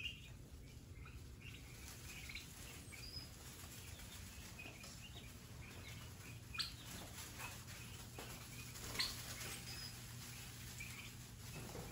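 A flock of turkey poults about two weeks old peeping: many short, scattered chirps, with two louder calls about six and a half and nine seconds in, over a low steady hum.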